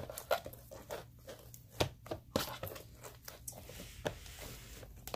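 Hands squishing, pressing and poking sticky slime in plastic trays: irregular sticky pops and crackles, several sharp ones among them.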